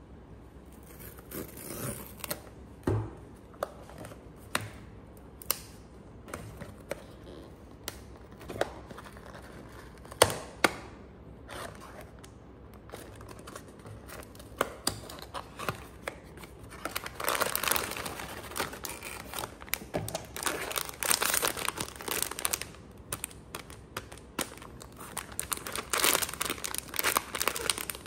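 A small cardboard box being torn open by hand, its flaps and card giving a series of sharp clicks and short tears. In the second half a glossy plastic blind-box bag is handled and crinkles in longer, louder rustles.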